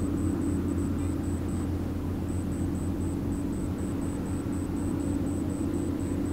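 Large ferry's engines running with a steady low rumble, joined by a faint high-pitched ticking about four times a second.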